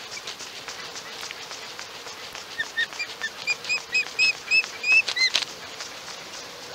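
Osprey calling: a quick series of about ten short whistled chirps, starting about two and a half seconds in and lasting about three seconds. Beneath it, the rustle of a young osprey flapping its wings on the stick nest.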